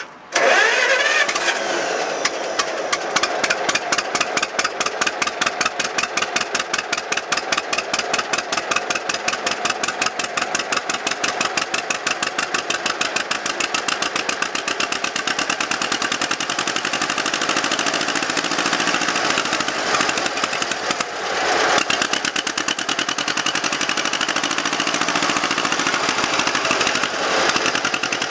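Two-cylinder engine of an old John Deere tractor converted to run on wood gas, catching and then running with a steady, even popping beat. About three-quarters of the way through it dips briefly and picks up again.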